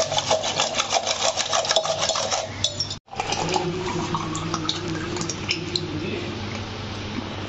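Wire whisk rattling and clinking rapidly against a steel bowl as sattu is mixed into water. About three seconds in the sound cuts off, and the thick sattu drink is then poured into a glass in a steady stream.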